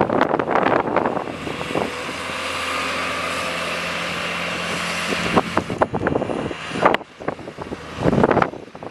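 Diesel engine of a construction machine (backhoe loader or wheel loader) running hard and steady, with irregular clattering bursts in the first second and again from about five and a half seconds.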